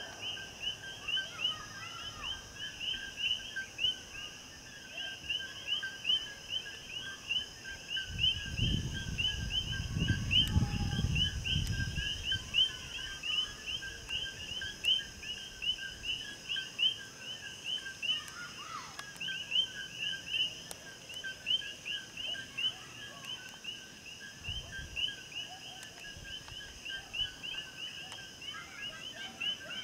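Night chorus of frogs and insects: rapid, evenly repeated chirps at two pitches over a steady high insect hum. A low rumble lasts a few seconds about a third of the way in.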